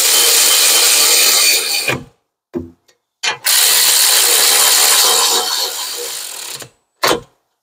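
Cordless electric ratchet running in caliper bracket bolts: two runs of the motor, the second longer and fading toward its end, with short clicks between and after.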